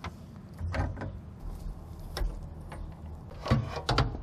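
A car's air-conditioning hose being pulled and worked loose by hand in the engine bay: a series of short scrapes, rubs and knocks as it catches on surrounding parts, the loudest cluster near the end.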